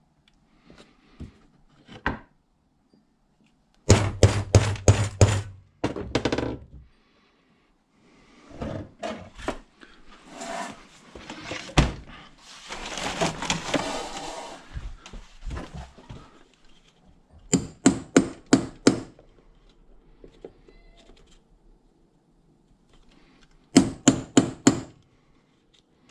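Sharp knocks in three quick runs of five or six strikes each, with handling and rustling in between, from hand-tool work on a leather belt.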